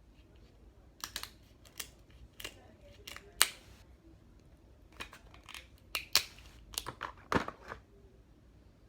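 Crab shells being cracked and snapped apart by hand: an irregular series of sharp cracks and clicks, the loudest about three and a half seconds in and again near seven and a half seconds.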